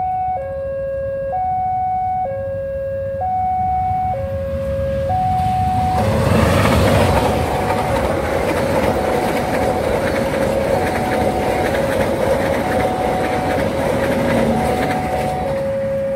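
Railway level-crossing warning alarm sounding an alternating two-tone chime, high and low notes about a second each. About six seconds in, the rumble and wheel clatter of a passing train rise over it, and the chime carries on underneath.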